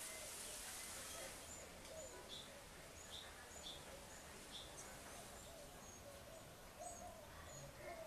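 Faint short, high chirps, about one or two a second, from Hoffmann's woodpecker fledglings calling to be fed by their parents, over a steady hiss.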